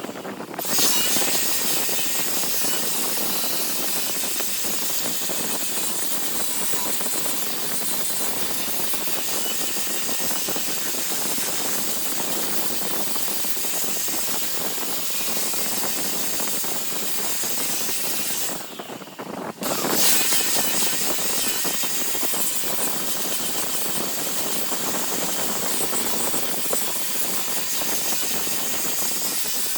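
Large wood lathe running, with a steady hiss of wood being worked on the spinning piece. The sound briefly drops away twice, at the very start and about two-thirds of the way through.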